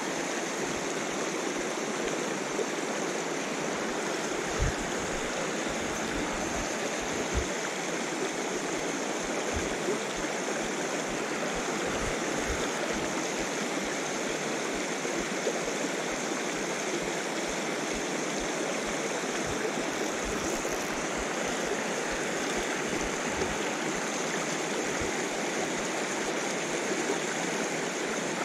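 Small moorland stream rushing over a rocky cascade: a steady, even rush of water, with a few faint low bumps now and then.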